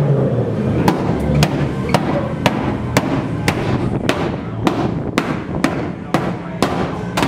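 Background music with a steady beat, a sharp percussive hit landing about twice a second.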